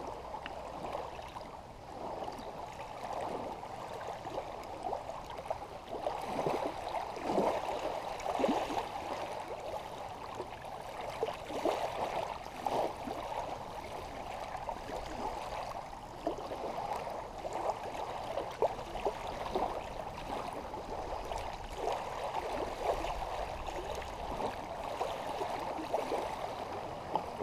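Small waves lapping and splashing against a rocky, stony shoreline: a continuous, uneven wash broken by irregular small splashes.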